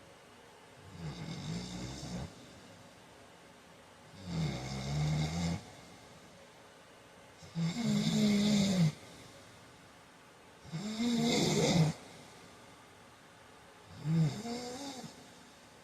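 A sleeping man snoring loudly: five snores at an even pace of about one every three seconds, each lasting about a second.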